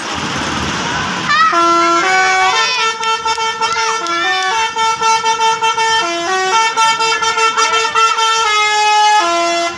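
Bus telolet horn: a multi-trumpet musical air horn playing a tune of several notes sounding together, stepping from pitch to pitch. It starts about a second and a half in and keeps playing.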